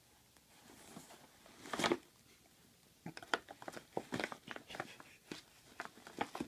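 Paper gift bag crinkling and rustling as a cat rolls on it and paws and bites at it: one louder rustle about two seconds in, then a quick run of short crackles.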